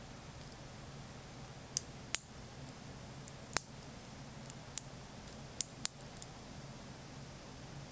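Cold Fusion neodymium magnet balls snapping onto a hand-held cluster of balls: about nine sharp, irregular clicks, starting about two seconds in.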